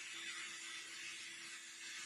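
Steady hissing noise with a faint steady hum underneath.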